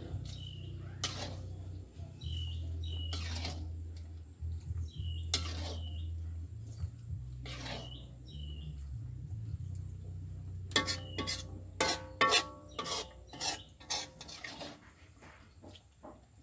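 A metal ladle scraping and clinking against a metal wok as soup is scooped out into a bowl, over a steady low hum. A run of sharper, ringing clinks comes about two-thirds of the way through.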